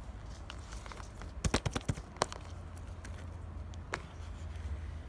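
Thick, chewy slime being pressed and stretched by hand, giving a quick cluster of sharp clicks and pops about a second and a half in, then single pops a little later, over a low steady hum.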